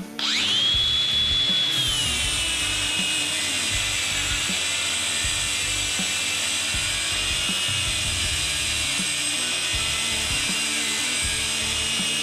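DeWalt DCG416 Flexvolt Advantage brushless cordless angle grinder on a 20-volt battery, with a 5-inch flap disc, spinning up with a rising whine and then grinding a metal bar steadily. The whine drops a little in pitch about two seconds in as the disc bites, then holds there. On 20 volts the owner finds the grinder short of power to run the 5-inch wheel effectively.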